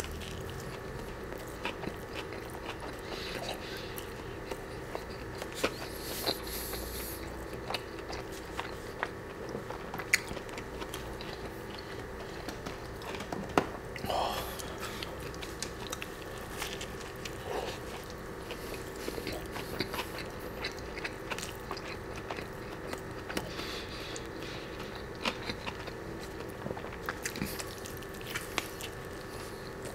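Close-miked eating of a Chick-fil-A fried chicken sandwich: biting and chewing, with many short wet mouth clicks and crunches of breaded chicken and bun, over a faint steady hum.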